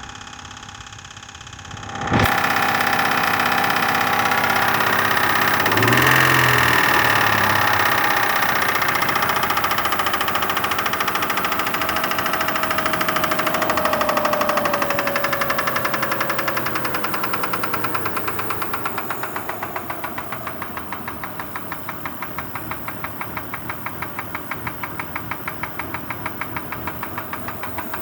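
Kia Sorento engine starting about two seconds in and running fast at first, with its pitch slowly falling as it settles. It then idles with a steady, evenly repeating knock, which the uploader says sounds like piston pin knock.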